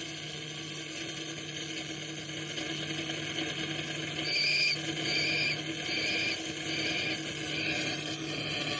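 Phantom Cell touch-based noise synthesizer playing a dense noisy soundscape over a steady low drone. From about halfway in, a high hooting tone pulses five times, about once every 0.8 s.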